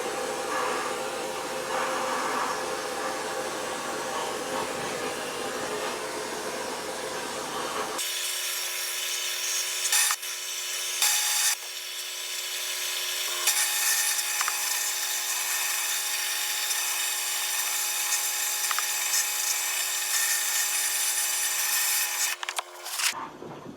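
Vapor blast cabinet running, its blast gun hissing steadily as it sprays glass-bead slurry onto an aluminium cylinder head. About eight seconds in the low rumble drops out abruptly, a few sharp knocks come around ten and eleven seconds, and the hiss stops abruptly near the end.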